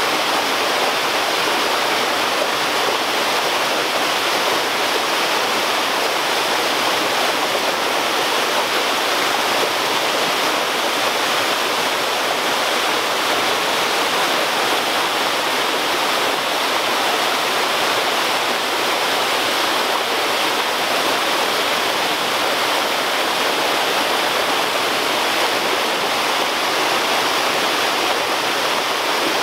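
Small waterfall splashing and cascading over rocks into a shallow pool: a steady rushing of water.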